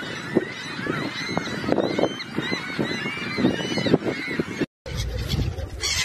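A flock of ring-billed gulls calling, many short rising-and-falling cries overlapping with lower squawks. Near the end the sound cuts out for an instant and gives way to a steady low rumble.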